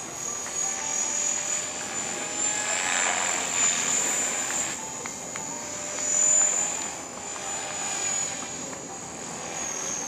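Align T-Rex 500 radio-controlled helicopter flying overhead: a steady high whine from its electric motor and drive gears, slightly wavering in pitch, over a rotor whoosh that swells about three seconds in.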